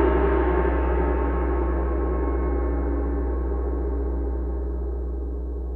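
A long gong-like ringing tone of many steady pitches, slowly fading away over a low steady drone.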